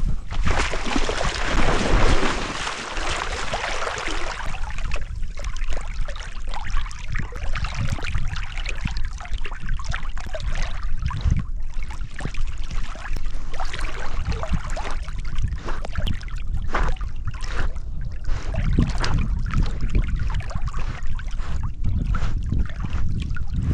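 Water splashing and sloshing close up around a swimming or wading Labrador retriever, heavy at first for about four seconds, then lighter and uneven, with low rumbling bumps.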